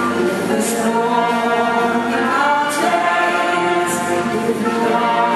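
A woman singing into a microphone over a live band, the voice held on long sustained notes amplified through the hall's sound system.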